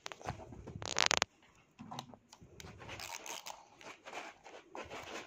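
A dog's vibrating ball toy gives one loud, rattling buzz for about half a second, about a second in. Softer scuffling and mouthing noises follow as the dog holds and tugs the toy.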